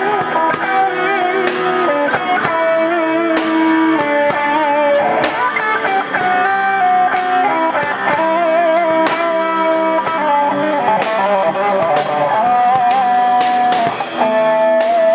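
Electric guitars playing a melodic lead line, with sustained notes held and shaken with vibrato, over a drum kit keeping a steady beat.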